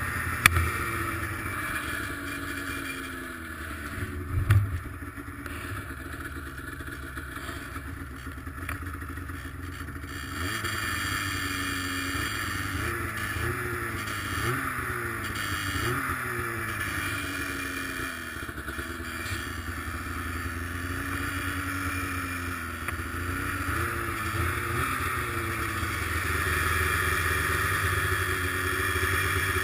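Arctic Cat ZR 800 snowmobile's two-stroke engine running under way, its pitch rising and falling with the throttle. There is a single thump about four and a half seconds in.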